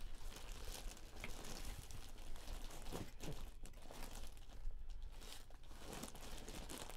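Clear plastic bag around a jersey crinkling and rustling as it is handled and turned over in a cardboard box, with scattered small crackles.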